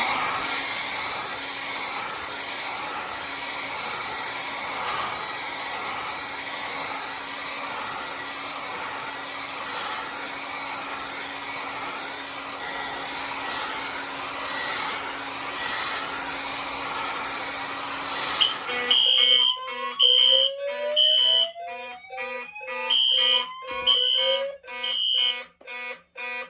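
Electric hot-air blower running steadily for about 19 seconds, heating a rate-of-rise heat detector. The fire alarm system then goes into alarm: a horn sounds in march-time pulses, over a voice-evacuation speaker's slow whoop, a rising tone sweeping upward every few seconds.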